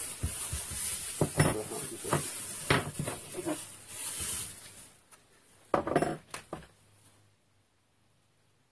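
A series of sharp clicks, knocks and clinks of small hard parts being handled during work on a chainsaw, with a last cluster of knocks about six seconds in, then near silence.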